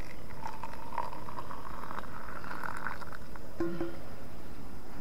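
Water poured from a stainless steel pot into a plastic cup, the pouring sound rising in pitch as the cup fills. A short clink follows about three and a half seconds in.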